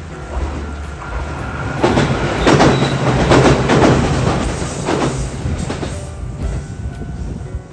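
Electric passenger train crossing a steel girder railway bridge overhead, its wheels clacking over the rail joints. It builds to its loudest about two seconds in and eases off toward the end.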